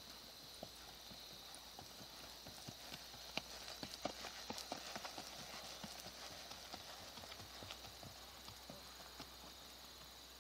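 Hoofbeats of a ridden palomino Paint gelding on arena sand: a run of soft, faint knocks that grows loudest as the horse passes close, about three to five seconds in, then fades as it moves away.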